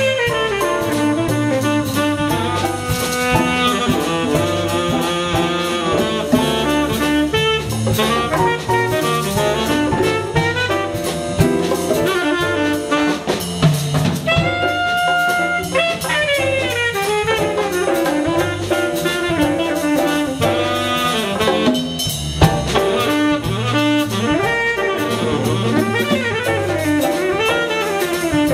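Jazz combo playing: a tenor saxophone solos over electric bass, drums and piano, holding one long note about halfway through.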